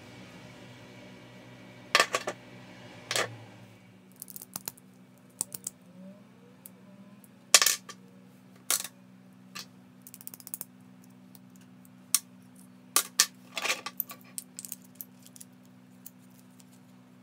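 Metal parts of a disassembled impact driver's hammer mechanism clinking and knocking against each other and the work surface as they are handled, in scattered sharp clicks with a few louder clanks. A steady low hum runs underneath.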